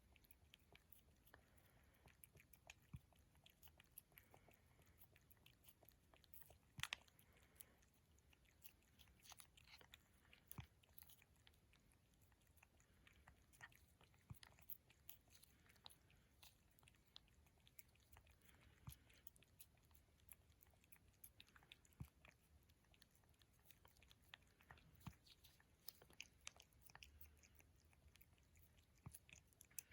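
A cat eating steadily without pausing, with many small irregular chewing clicks.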